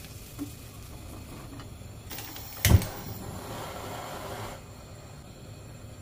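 Kitchen cookware handling: a faint click, then one sharp knock of cookware set down or struck about halfway, followed by about two seconds of hiss.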